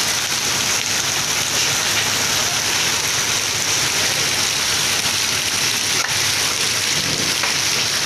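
Heavy rain pouring down onto a wet street, a dense, steady hiss.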